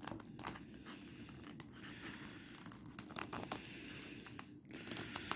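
Faint, irregular scraping, rubbing and small clicks as a plastic ship model is pushed and worked by hand into a slot cut in a foam board.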